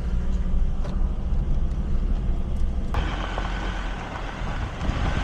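Steady low rumble of a moving vehicle heard from inside it. About three seconds in, a louder hiss suddenly joins the rumble.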